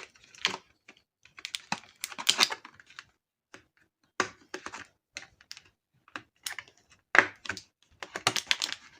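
Irregular clicks and short rustles of small plastic parts and packaging being handled, as AA batteries and a USB receiver dongle are taken out of an unboxed wireless keyboard and mouse set.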